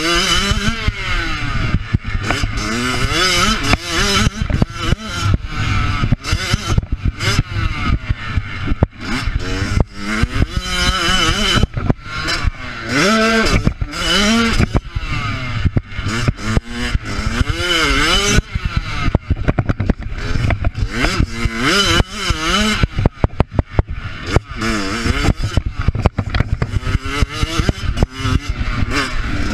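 Motocross bike engine heard from on board while riding a dirt track, its pitch repeatedly climbing under throttle and dropping back as the rider shifts and brakes for corners, with rattling from the bike over rough ground.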